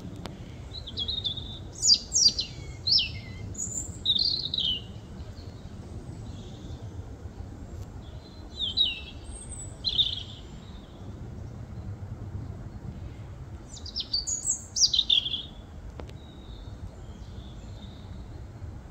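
European robin singing: three short phrases of high, quick, warbling notes, about a second in, near the middle and near the end, with pauses between them. Under the song runs a steady low background rumble.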